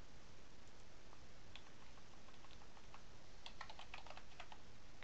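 Computer keyboard typing over a faint steady hiss: a few scattered keystrokes, then a quick run of keystrokes about three and a half seconds in.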